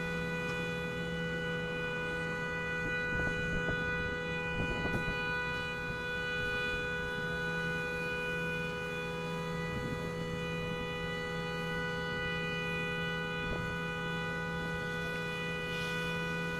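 Car horn sounding continuously in a steady, unbroken tone, with a few faint knocks underneath.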